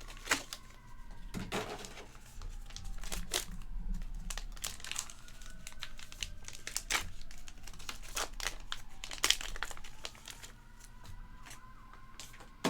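Plastic wrapping crinkling and tearing as a sealed trading-card box is opened, with many sharp crackles and clicks.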